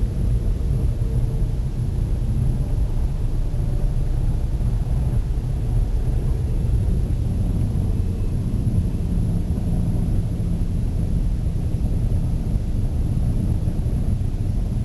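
Steady low rumble of a car's engine and road noise heard from inside the cabin while crawling through traffic.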